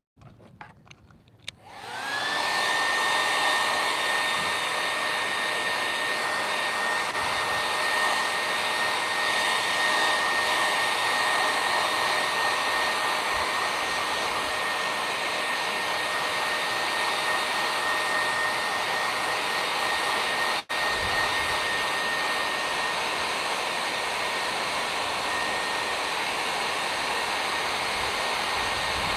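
Conair hand-held hair dryer switched on about two seconds in, spinning up quickly and then running steadily with a whining fan tone over the rush of air. It cuts out for an instant about two-thirds of the way through.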